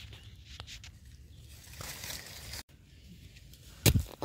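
Faint rustling and scraping in soil and leaf litter while termite mushrooms are picked and dug out of the ground, with one loud thump near the end.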